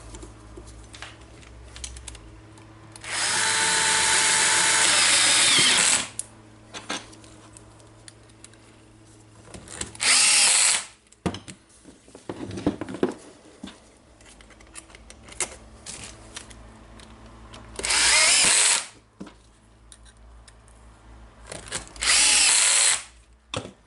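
Power screwdriver driving screws into the core drill's housing. It runs four times: one long run of about three seconds, then three short runs of about a second each. Small handling clicks come in between.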